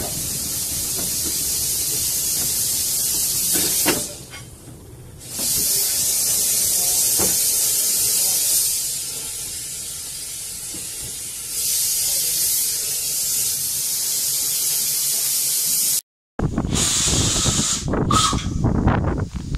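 Steam hissing steadily from a small narrow-gauge steam locomotive. It drops away for about a second a few seconds in and eases off for a while midway. After a sudden break near the end, it gives way to irregular knocks and rumbling.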